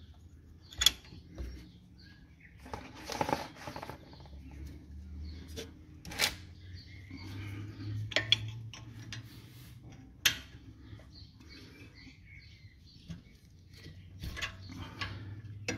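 Steel combination wrenches clinking and scraping against the lower guide pin bolt of a rear brake caliper as the bolt is worked loose. A handful of sharp metal clicks come at uneven gaps, with a stretch of rustling handling noise about three seconds in.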